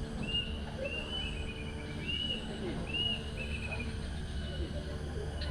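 A songbird calling: short, arched whistled notes repeated several times, with two quick trills mixed in. A steady low rumble runs underneath.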